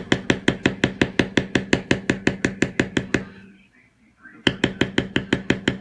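Mallet striking a leather stamping tool, tooling a leather belt in rapid, even taps of about seven a second. The tapping stops for about a second a little past halfway, then carries on.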